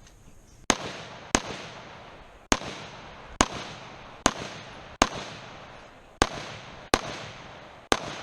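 Rifle shots fired singly in a timed competition string: about ten sharp cracks at uneven intervals of roughly half a second to a second, each trailing off in a short echo.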